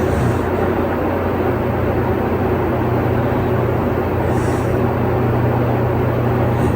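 Steady mechanical drone with a strong low hum and no rhythm, with faint short hisses at the start and about four and a half seconds in.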